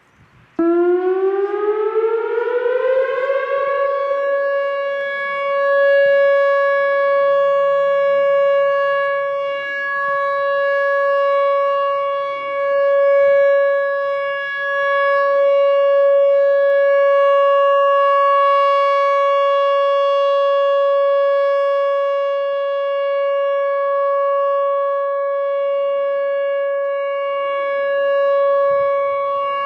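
Emergency alert siren tone that starts suddenly, winds up in pitch over about three seconds, then holds one steady wailing pitch, swelling and easing slightly in loudness.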